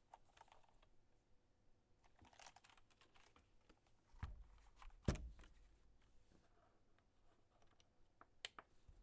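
Keystrokes on a topmount mechanical keyboard with a polycarbonate case, carbon-fibre plate and unlubed Cherry MX2A Black linear switches. Scattered single key presses, sparse rather than continuous typing, with two louder, deeper strokes about four and five seconds in.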